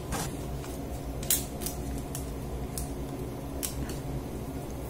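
Faint handling sounds from a plastic boil-in-bag packet of cooked buckwheat being lifted and cut open with a kitchen knife: a few light, scattered clicks and crinkles over a low steady hum.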